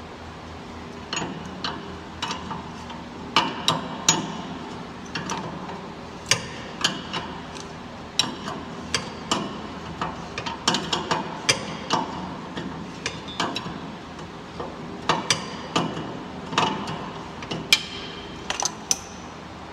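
Irregular sharp metallic clicks and knocks of hand tools and parts being handled during work on an exhaust oxygen sensor, over a steady low hum.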